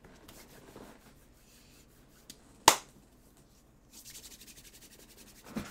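Palms rubbing together close to the microphone, a dry rasping that starts about four seconds in and ends with a soft thump. It comes after one sharp, loud click near the middle.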